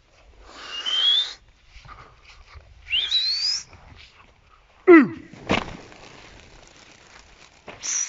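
A person whistling: two sharp rising whistles, then a whistle that dips and climbs again near the end. About five seconds in comes a loud, steeply falling cry, the loudest sound here, followed by a sharp knock.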